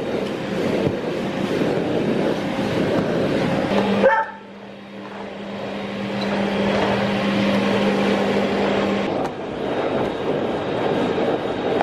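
Vacuum cleaner running as its floor nozzle is pushed over a wooden floor and a rug, with a Belgian Tervuren barking sharply once about four seconds in. Right after the bark the vacuum's noise drops for a few seconds, leaving a steady hum.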